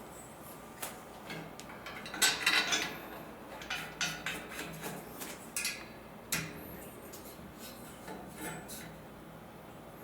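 Steel frame bars and bolts clinking and clattering as they are handled and fitted together, in scattered light clicks, with a louder run of rattling about two seconds in and a sharp knock a little after six seconds.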